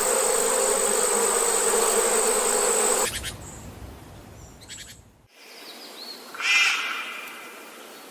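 Steady insect buzzing that cuts off suddenly about three seconds in. Later a short animal call with several pitches sounds once.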